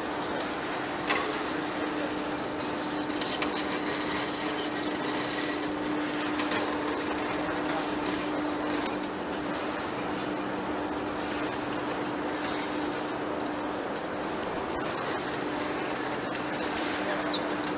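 Heavy-duty lathe cutting a large metal rotor shaft: the tool scrapes and crackles through the rusty surface as chips break away, over a steady machine hum, with one sharp click about a second in.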